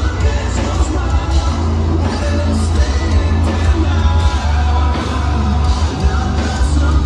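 Live heavy metal band playing loud, with electric guitars, drums and a singer's vocals over a heavy bass low end, heard from within the crowd.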